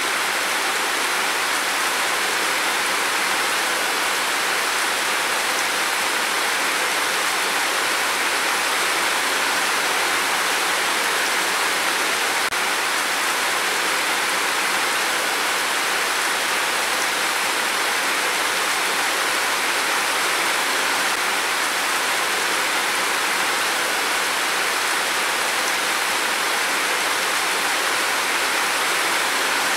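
Heavy rain pouring down steadily, an even hiss with no thunder.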